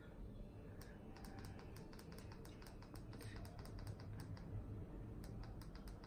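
Faint, irregular clicking of small plastic buttons being pressed one after another, many clicks over a few seconds, like keys on a handheld remote control.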